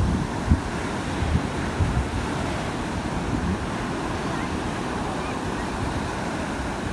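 Sea surf washing onto the beach as a steady rushing noise, with wind buffeting the microphone in low gusts during the first couple of seconds.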